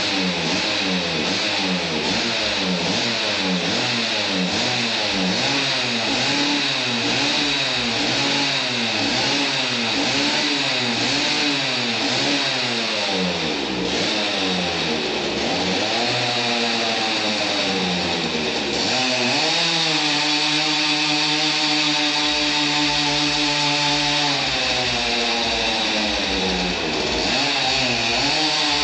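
Simson Schwalbe's single-cylinder two-stroke engine being revved: the throttle is blipped about once a second, then the revs climb and are held high for several seconds before dropping and climbing again near the end.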